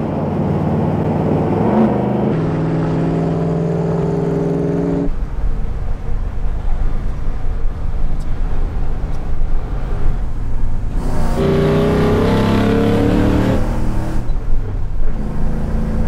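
Ford 5.0 L Coyote V8 in a 1960 Ford F250 crew cab pulling hard, heard from inside the cab: the engine pitch climbs and steps up in the first few seconds, eases to a steadier drone, then climbs again about eleven seconds in.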